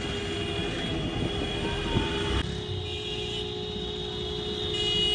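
Street traffic heard from a car, with steady tones held over the road noise like a horn. The sound shifts abruptly about two and a half seconds in.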